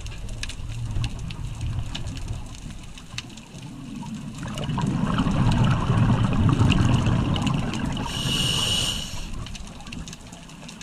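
Scuba diver breathing through a regulator underwater: a long gurgling rush of exhaled bubbles from about four seconds in, then near the end a short hissing inhalation with a thin whistle. Scattered faint clicks throughout.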